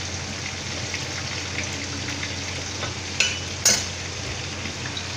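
Chicken wings deep-frying in hot oil in a wok, a steady crackling sizzle. A little past three seconds in, two sharp knocks about half a second apart come from the metal spatula against the wok.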